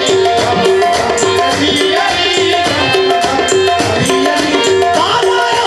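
Qawwali music: harmoniums repeat a short riff over tabla strokes, with a sung voice rising in over it about two seconds in and again near the end.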